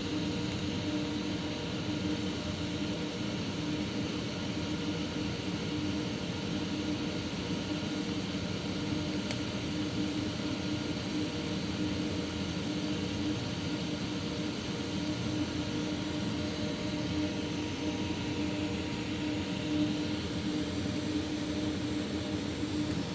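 TIG welding arc burning steadily: an even hiss with a constant hum.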